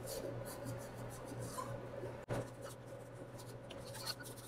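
Paper wipe rubbing and scrubbing against the brass inlet fitting of a gas regulator, cleaning it with acetone, in short irregular strokes over a steady low hum.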